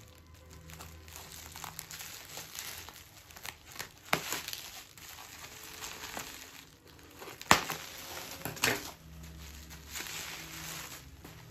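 Bubble wrap crinkling and rustling as it is pulled off a boxed teapot, with three sharp cracks, the loudest a little past the middle.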